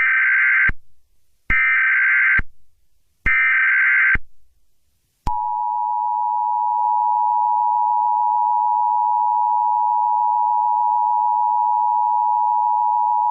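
Emergency Alert System broadcast opening: three short bursts of SAME header data tones about a second and a half apart, then the EAS two-tone attention signal, a steady dual-pitched tone held for about eight seconds.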